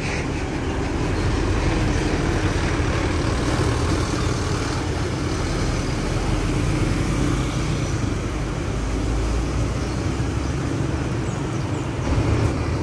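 Bus engines and traffic at a bus terminal, a steady low rumble.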